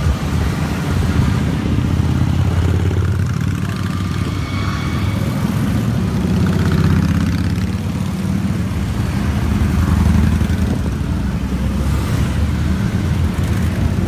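A column of cruiser and touring motorcycles riding past one after another, their engines a steady low rumble that swells as bikes come close, around 7 and 10 seconds in.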